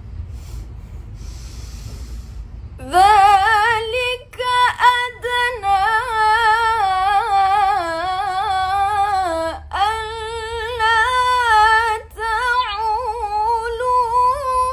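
A woman reciting the Qur'an in melodic tilawah style, entering about three seconds in with high, long-held notes full of quick ornamental turns. She breaks for breath twice, the first time about two-thirds of the way through. A low steady rumble runs underneath.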